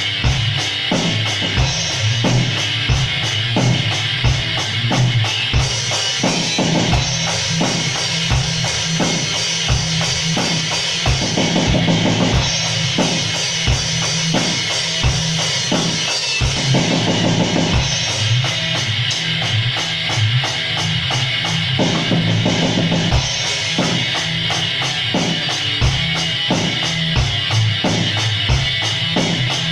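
A band jamming live, with the drum kit loudest: a steady kick-drum beat under snare and cymbals, with guitar and other instruments blurred together in a distorted recording.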